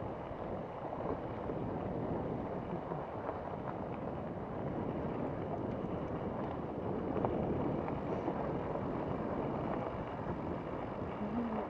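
Mountain bike rolling downhill on a dirt singletrack: a steady rush of tyre noise and wind on the camera microphone, with a few light clicks and rattles from the bike over the rough trail.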